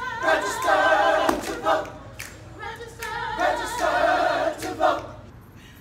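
Gospel choir singing a cappella in harmony, two phrases with vibrato, over sharp hand claps; the voices fade out near the end.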